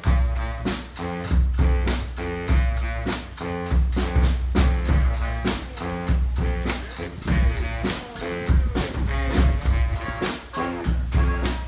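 Live street brass band playing an upbeat tune: horns over a steady drumbeat and a heavy low bass line.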